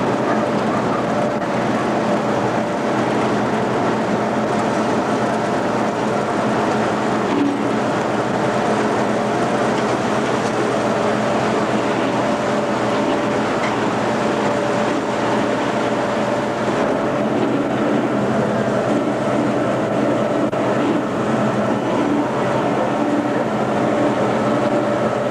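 Engine of a slow-moving vehicle running steadily, heard from aboard, as a constant hum with a rattle that holds steady throughout.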